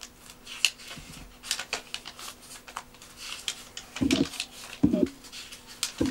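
Pages of an old paper phrase book rustling as they are handled and turned: many short crisp rustles. A few short, loud, low sounds come about four and five seconds in and again at the very end.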